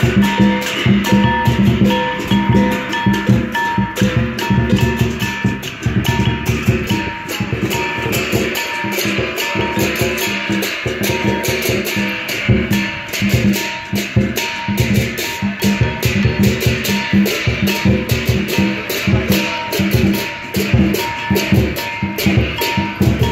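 Chinese lion dance percussion: a large lion dance drum beaten in a fast, driving rhythm with crashing hand cymbals.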